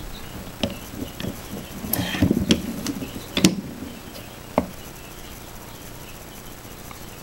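Small clicks and knocks of hand-loading a shotgun shell: shell and wad handled in a metal shell holder on a wooden block. There are a few scattered taps, the loudest about three and a half seconds in and a last sharp click just after, then only a steady faint hiss.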